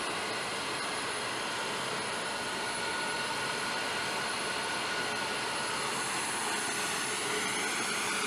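Steady jet engine noise: an even rushing hiss with a faint high whine.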